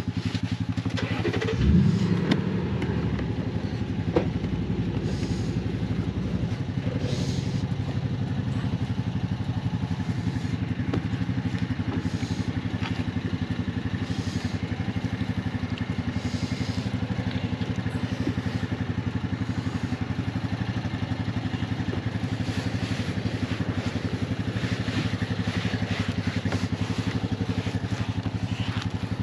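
Gas pressure washer's small engine running steadily at a constant speed, with brief hissing bursts of spray now and then. There is a short louder surge about two seconds in.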